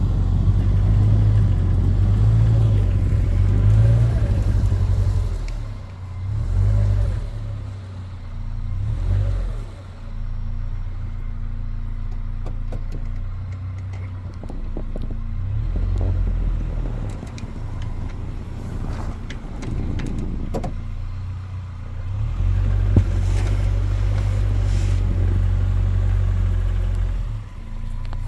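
A truck's engine running as it drives slowly over snow and ice in the yard. It is a steady low rumble that dips and swells a few times in the first ten seconds.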